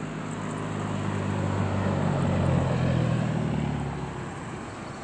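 The engine hum of a passing vehicle, growing louder to a peak about halfway through and then fading away.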